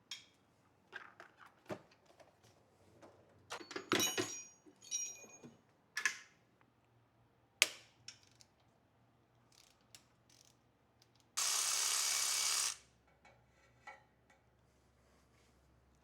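Metal hand tools clicking, knocking and clinking against engine parts, with a ringing cluster of clinks about four seconds in. A little after the middle comes a steady hissing burst lasting just over a second.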